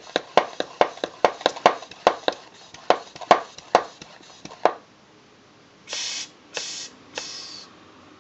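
Sharp clicks and knocks of hard plastic parts, about three a second and unevenly spaced, as the pump rod and plunger handle of a hand-pump garden pressure sprayer are handled and fitted. They stop partway through. About six seconds in come three short hisses, each about half a second long.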